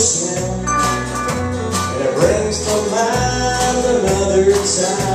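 A live country band playing an instrumental break, with acoustic guitars, electric bass, pedal steel and keyboard over a steady drum beat.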